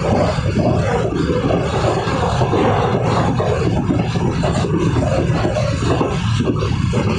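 Mumbai suburban local train running at speed: a loud, steady rumble and rattle of wheels on the rails.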